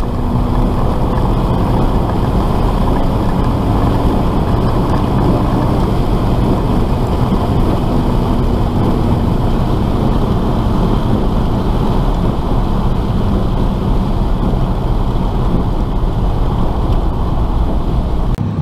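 Steady in-cabin noise of a car at speed on a wet road: the engine running at a steady pitch under the hiss and rumble of tyres through water.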